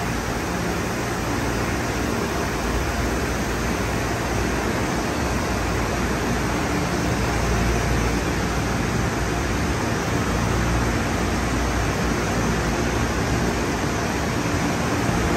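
Conveyor car wash tunnel running: purple cloth wrap brushes and black wheel scrubber brushes spinning against a car under water spray, a steady rushing noise with a low rumble underneath.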